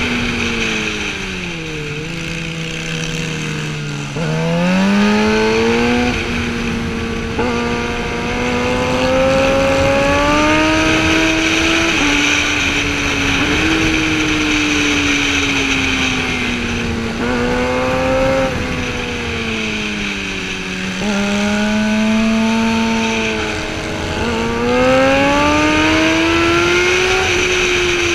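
Sportbike engine under hard riding, its pitch rising and falling through the curves with sudden steps at gear changes several times. Steady wind rush over the rider-mounted camera.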